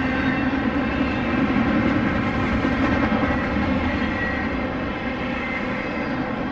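BNSF freight train passing: a steady rumble of cars rolling over the rails.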